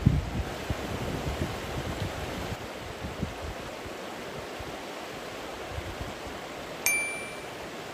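Steady rushing outdoor noise, with irregular low thumps in the first few seconds and, near the end, a single sharp ping that rings briefly and fades.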